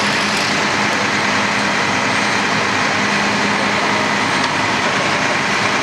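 Heavy work trucks' diesel engines running steadily: a loud, even engine noise with a constant low hum.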